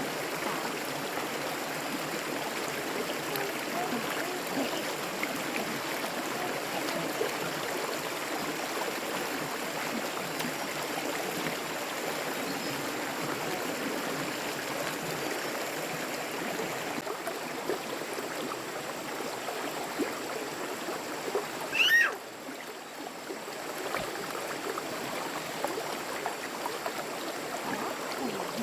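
Water running steadily, like a small stream flowing after heavy rain. Near the end comes one brief, loud, high-pitched sound.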